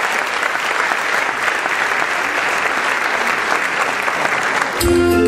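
Audience applauding in a hall. Near the end the clapping gives way to music starting, with held keyboard-like notes over a low bass.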